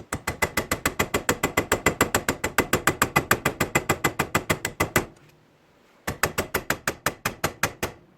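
Rapid hammer blows on a steel pin punch, about eight a second, ringing metallically, as the punch tries to drive out the pin holding a 1964–66 Ford Thunderbird's shifter lever. One long run of strikes, a short pause, then a shorter run. The pin is badly stuck and barely moving.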